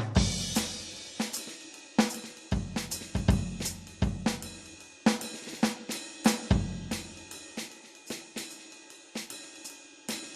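Alesis Command Mesh electronic drum kit played in a busy groove: rapid hi-hat and cymbal strikes over snare and kick, with deep, long-ringing low drum hits near the start, around two and a half to three and a half seconds in, and again a little past six seconds.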